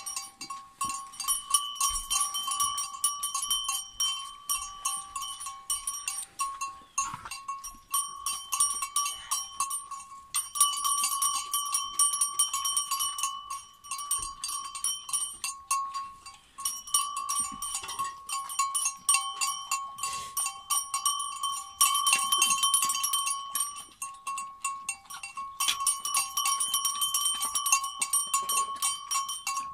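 Two dogs chewing and lapping soft food from metal bowls: a run of quick wet clicks and smacks. Under it is a steady high-pitched ringing tone that drops out briefly every few seconds.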